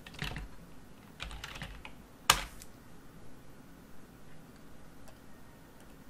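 Typing on a computer keyboard: a few quick keystrokes, one sharper key click a little past two seconds in, then a few faint taps.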